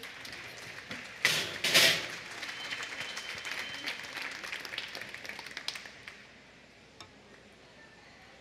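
Audience applauding for about six seconds, with two loud sharp bursts about a second and a half in, then dying away. A couple of faint clicks follow.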